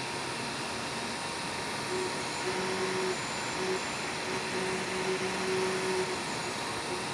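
Tevo FDM 3D printer printing: a steady whirring hiss from its fans, with the stepper motors humming in short, pitched stretches that start and stop as the print head and bed move.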